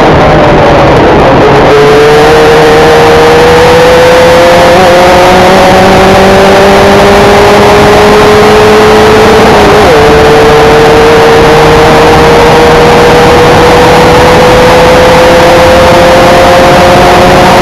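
Formula 1600 race car engine under hard acceleration. Its pitch climbs slowly and steadily and drops suddenly at two upshifts, about a second and a half in and about ten seconds in.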